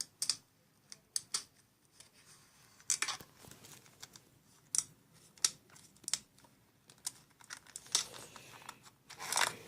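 Slime being pressed and worked by hand, giving irregular sticky clicks and crackles.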